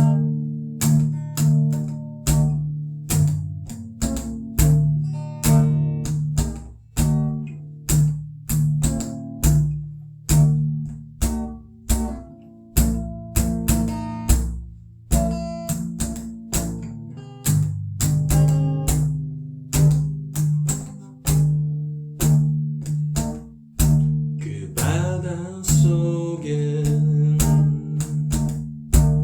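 Instrumental passage of a song, led by guitar: notes struck in a steady rhythm, each ringing and fading. Near the end, a wavering, sliding melodic line joins in.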